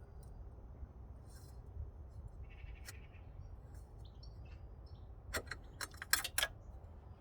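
A brief high squeak, then a quick run of sharp clicks or clinks about two-thirds of the way through, over a steady low hum.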